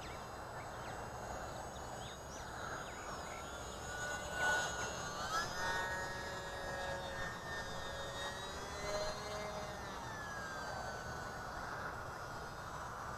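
E-flite UMX Pitts S-1S micro RC biplane in flight: a thin whine from its small electric motor and propeller that glides up and down in pitch, over a steady outdoor hiss.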